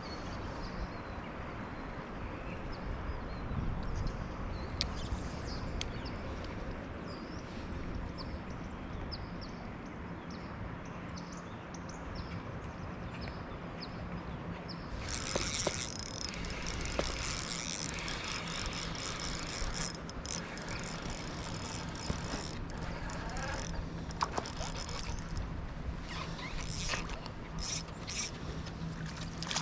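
Steady rushing of river water; about halfway in, a dense run of quick clicking and rattling joins it.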